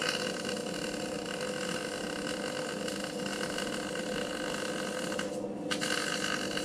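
Arc welding on the steel frame of a bale wrapper: a steady hiss over a constant hum, with the upper hiss breaking off briefly about five seconds in.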